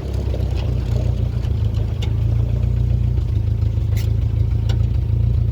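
1956 Willys Jeep CJ5's F-head four-cylinder engine running at low speed, a steady low rumble, with a few faint clicks.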